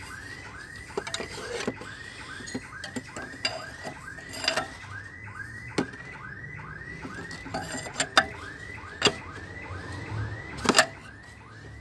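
A mechanical squeak repeating about three times a second, with a few sharp metallic clicks as a 32 mm open-end wrench is set on the fan clutch nut of a BMW E39; the loudest clicks come in the second half.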